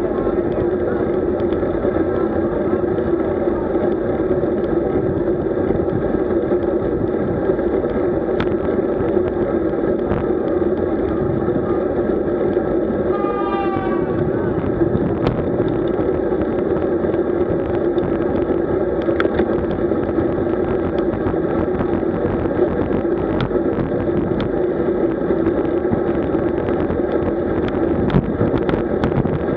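Steady road and wind noise from a camera riding along on a road bike, with a constant hum and occasional small ticks from bumps.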